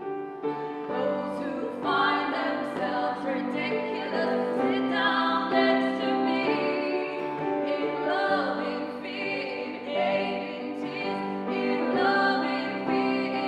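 Live acoustic folk-rock performance: women's voices singing in harmony over strummed acoustic guitar.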